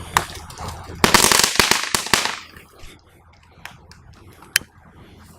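Firecrackers going off: a sharp crack just after the start, then a fast run of crackling bangs about a second in that lasts just over a second, then one more pop near the end.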